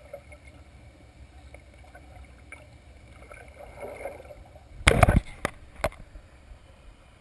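Muffled underwater pool sound heard through a GoPro's waterproof housing: a low steady wash of water, then a loud burst of splashing and knocks about five seconds in, followed by two sharp knocks, as a swimmer reaches and handles the camera.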